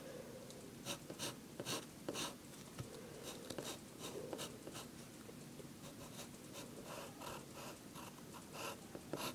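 Pencil drawing on lined paper: faint, short scratching strokes at irregular intervals.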